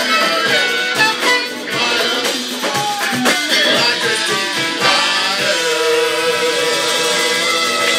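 Live band music: electric guitar and a full band playing, with a man singing wordless, gliding vocal lines into a microphone.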